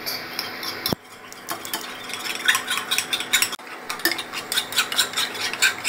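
A metal spoon beating raw eggs in a ceramic bowl: rapid, repeated clinks and scrapes of the spoon against the bowl, starting about a second in.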